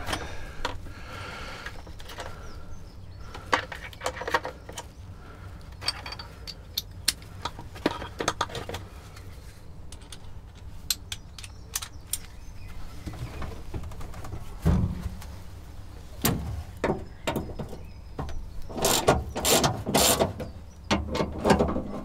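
Ratchet wrench loosening the bolts of a metal cover plate on an old truck: scattered clicks and metal knocks, a dull thump partway through, and quick runs of ratchet clicking near the end.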